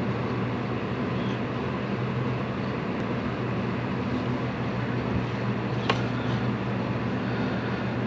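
Steady low hum over a faint background hiss, with one faint click about six seconds in.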